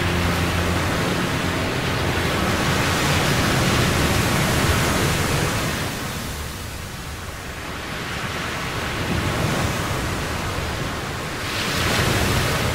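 Ocean surf on a sandy beach: waves breaking and washing back, the sound rising and falling in long, slow swells.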